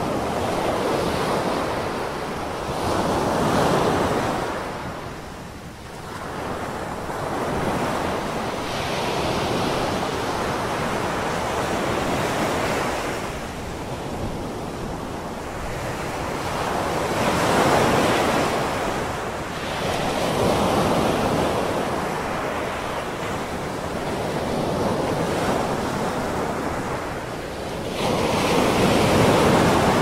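Ocean surf breaking on a sandy beach, the waves crashing and washing up the shore in a steady rush that swells and fades every few seconds.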